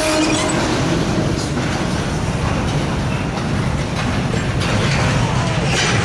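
Freight train derailing: covered hopper cars grinding and crashing off the rails with a heavy, steady rumble. Sharp crashing impacts come near the end.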